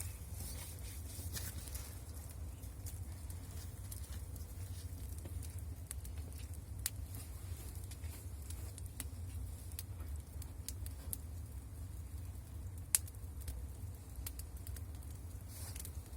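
Bonfire crackling: scattered sharp pops and clicks, one louder crack about thirteen seconds in, over a steady low rumble.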